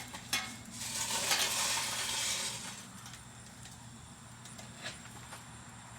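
Hot charcoal tipped from a chimney starter into a smoker's firebox: a clink, then about two seconds of coals rattling and hissing as they pour, followed by a few faint ticks.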